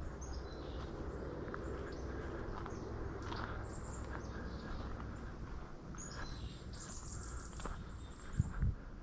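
Woodland ambience: small birds chirping and insects over a steady low rumble, with two dull knocks near the end.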